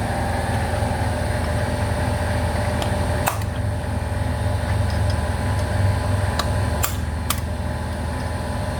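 Steady low mechanical hum, with a few sharp metal taps: one about three seconds in and several more near the end.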